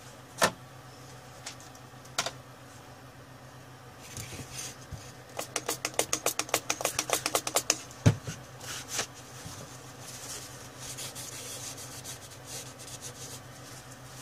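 Quick scratchy scrubbing strokes, about five or six a second for a few seconds, while the BGA graphics chip is cleaned with alcohol. Sharp clicks and knocks come before and after the scrubbing, lighter rubbing follows, and a steady low hum runs underneath.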